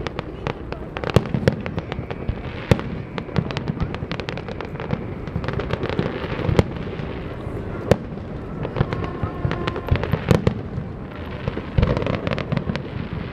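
Aerial fireworks shells bursting in quick, irregular succession: a string of sharp bangs over a continuous low rumble.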